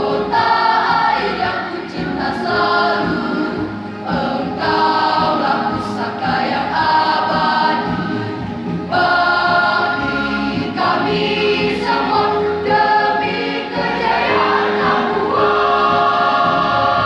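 School choir singing a march-style regional anthem in Indonesian, with keyboard accompaniment.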